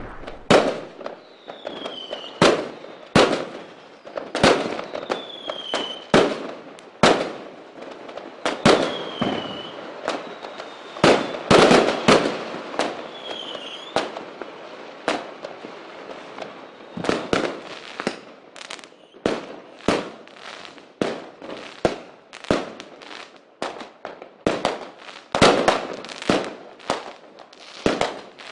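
Mortar fireworks going off in a steady, irregular barrage of sharp bangs, coming thicker in the second half. Several short falling whistles sound among the bangs in the first half.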